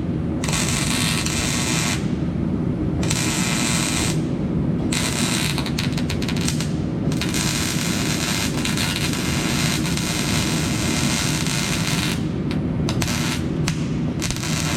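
Welding arc crackling and sizzling in runs, with short stops between beads about two seconds in, about four seconds in, and a few quick stops near the end.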